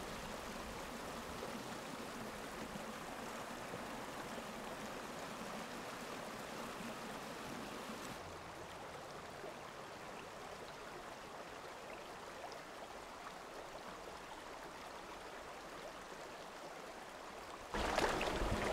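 Small mountain stream running over rocks: a steady rush of water. Just before the end a louder, rougher noise breaks in.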